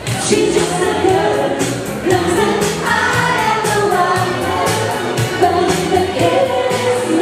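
Dance music with singing over a steady beat.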